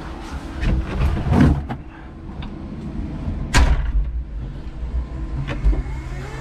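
Electric forklift cab: scattered clunks and knocks as the operator settles into the seat, with one sharp bang about three and a half seconds in, over the truck's low rumble.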